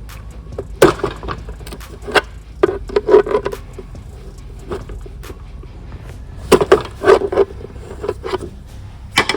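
Clicks and knocks from the plastic hood mirror housing being handled while its locking tab is pushed over to release the mirror. They come in several bunches, over a low steady rumble.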